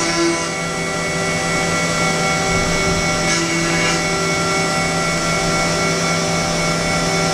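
Haas VF-6SS CNC vertical machining center milling a metal block with a small end mill: a steady machine whine of several tones over the cutting noise, with a brief hiss about three seconds in.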